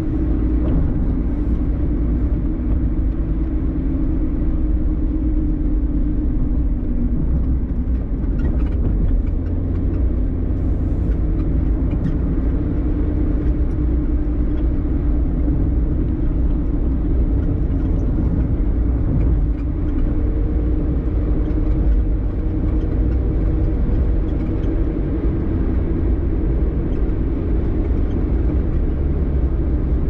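Steady low rumble of tyre and engine noise inside a moving car's cabin, with a faint hum that drifts slightly in pitch.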